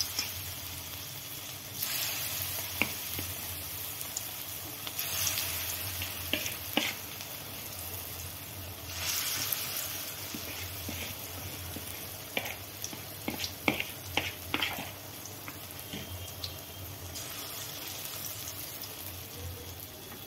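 Corn pakora batter deep-frying in hot oil in a wok: a steady sizzle that swells louder a few times as more batter goes in, with a few sharp clicks scattered through it.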